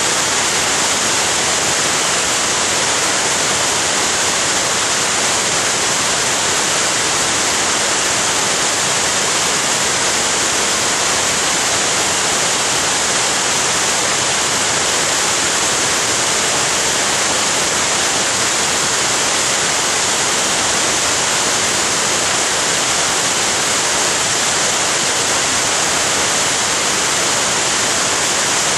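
Florence Falls, a mountain waterfall, giving a steady, loud rush of falling water: an even hiss that never breaks or changes.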